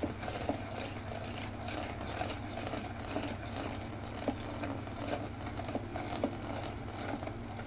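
Wire whisk stirring an egg and cornflour mixture in a stainless steel bowl, quick steady strokes clicking and scraping against the metal, over a low steady hum.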